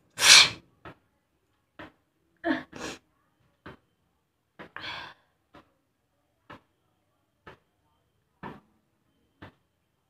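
A woman sneezes loudly, then sneezes twice more. Between and after the sneezes come short, sharp sniffs about once a second. The sneezes are set off on purpose by putting something into her nose.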